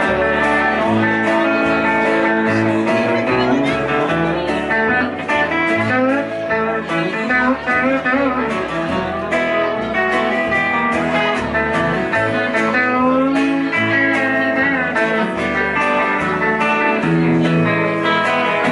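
Live band playing an instrumental passage: electric guitar notes bending in pitch over a plucked upright bass and a second guitar, in a blues-country style.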